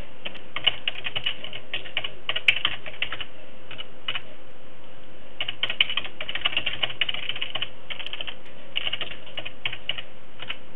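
Computer keyboard typing in quick runs of keystrokes, with a pause of about a second near the middle, over a faint steady hum.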